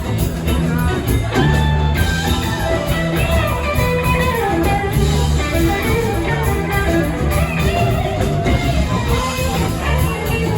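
Live rock band playing an instrumental passage: an electric guitar picks a winding lead line over sustained bass notes, with no singing.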